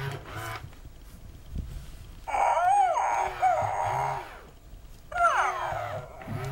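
Hasbro FurReal Friends Tumbles electronic toy dog playing recorded puppy yips and whimpers through its small speaker, in two bursts, one about two seconds in and another about five seconds in. A low hum comes and goes beneath them.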